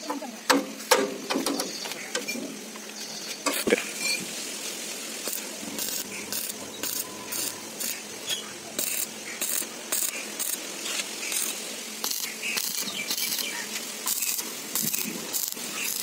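Arc (stick) welding along a steel patch on a concrete mixer drum: the arc crackles in short repeated bursts from about five seconds in, after a few sharp knocks as the plate is set against the drum.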